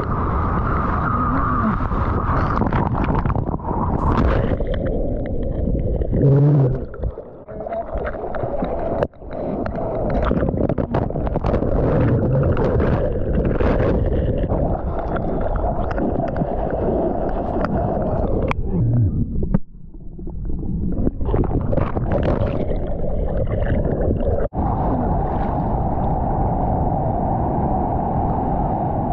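Ocean surf and sloshing water rushing and splashing over a waterproof-housed GoPro at water level, a continuous muffled rumble broken by many sharp splashes and crackles. The sound drops out sharply twice for a moment.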